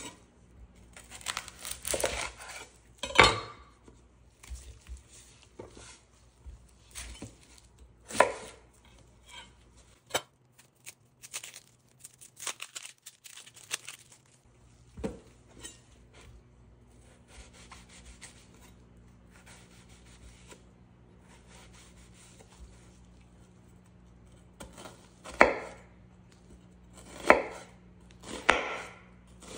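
Chef's knife cutting a red onion on a wooden cutting board: irregular crisp slices and knife knocks on the board, with a run of four heavier cuts near the end.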